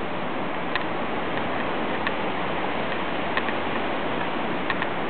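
Steady rush of hurricane wind and rain, with sharp ticks scattered irregularly through it, about seven in all.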